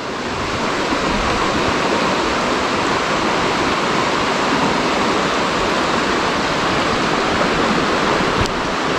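Steady rush of flowing river water, with one brief click near the end.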